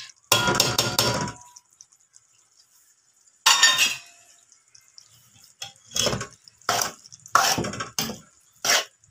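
A metal spoon scraping and knocking against a metal cooking pot while bitter gourd is stirred into a meat curry. A ringing scrape comes just after the start and a clank about three and a half seconds in. From about six seconds on there is a quick run of short knocks.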